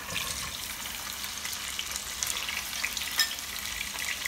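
Raw chicken pieces sizzling as they go into hot ghee and oil in a nonstick pot: a steady frying crackle full of small pops, with one sharper pop about three seconds in.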